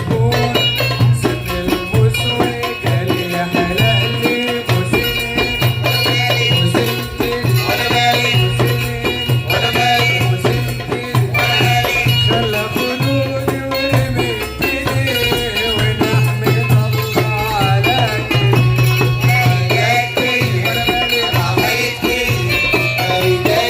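Live Port Said simsimiyya folk music: the plucked simsimiyya lyre playing a melody over hand percussion that keeps a steady beat.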